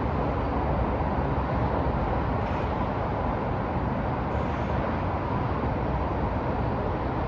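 Downtown city street ambience: a steady rumble of passing traffic, level throughout.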